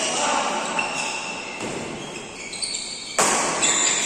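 Badminton racket striking a shuttlecock with a sharp, loud crack about three seconds in, echoing in a large hall, amid short high squeaks from shoes on the court mat.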